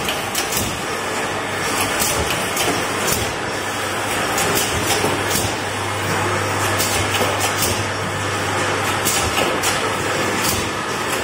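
Rat glue trap making machine running: a steady mechanical clatter over a low hum, with frequent sharp clicks and clacks from its moving parts.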